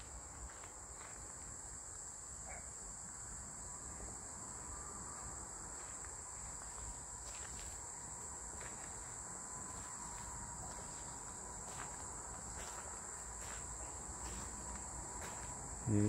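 Steady high-pitched chorus of crickets, with a few faint clicks.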